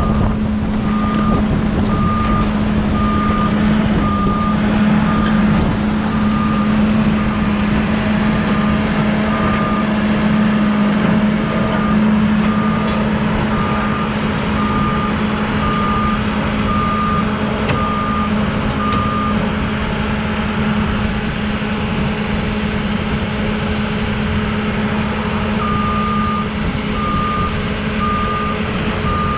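Kobelco 210 excavator's diesel engine running steadily while its warning alarm beeps about once a second as it tracks onto a trailer. The beeping stops for several seconds past the middle and starts again near the end.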